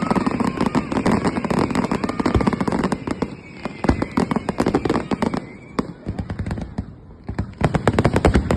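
Fireworks going off in rapid succession: a dense crackle of many bangs and pops. It thins out about halfway through and turns dense again near the end.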